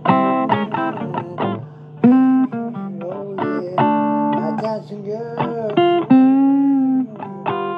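Blues guitar music: a guitar playing a run of single notes, with notes bent up and down in pitch partway through.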